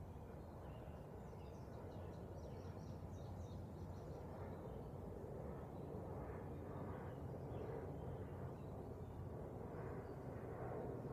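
Faint outdoor ambience: a steady low rumble with scattered faint bird calls over it.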